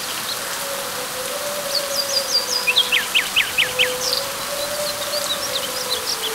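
Steady hiss of rain on leaves, with a bird calling in quick runs of short chirps, including a run of downward-sweeping notes near the middle. A faint wavering hum sits underneath.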